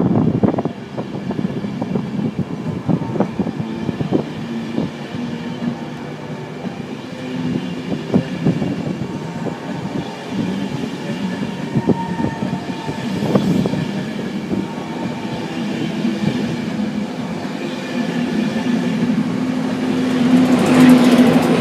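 InterCity 225 electric train of Mk4 coaches running past, its wheels clicking irregularly over rail joints. Near the end a steady electric hum swells as the locomotive end of the train comes level.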